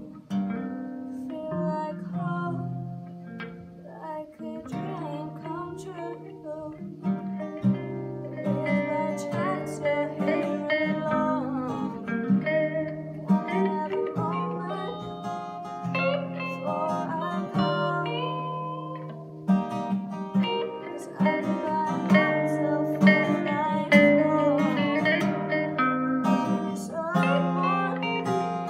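Acoustic guitar strummed in a steady rhythm, with an electric guitar playing melodic lead lines over it: an instrumental passage between sung lines of a pop-rock song.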